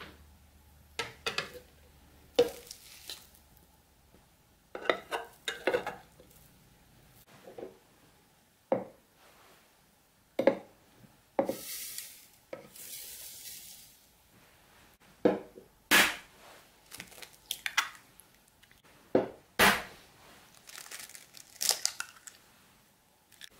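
Scattered clinks and knocks of glass bowls against a plastic blender jug as ingredients are tipped in, with a short hiss of granulated sugar pouring in about halfway through.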